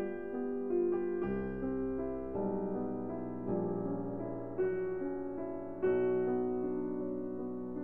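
Background piano music: a slow keyboard piece of held chords over low bass notes, a new chord about every second.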